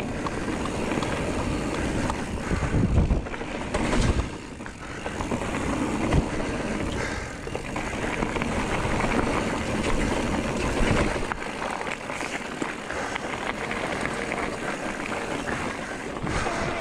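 Electric mountain bike (Giant Trance E+3) riding over a trail: tyres rolling and rattling over rough ground, with wind buffeting the microphone and a few sharp knocks from the bike over bumps.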